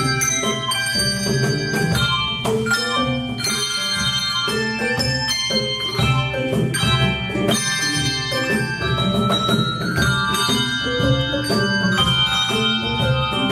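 A handbell choir playing a piece: many bells struck in quick succession, their notes ringing on and overlapping, with low bass bells sounding under the higher ones.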